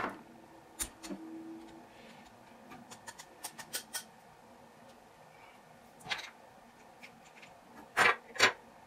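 Small metal knife parts and a precision screwdriver being handled, giving scattered light clicks and ticks against each other and the tabletop, with a sharper click about six seconds in and two more near the end.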